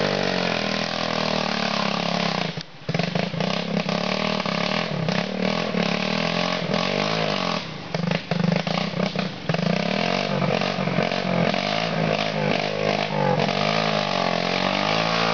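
Dirt bike engine revving up and down unevenly as the bike struggles on a muddy trail. It drops out abruptly for a moment about three seconds in, and a few knocks break in around eight to nine seconds.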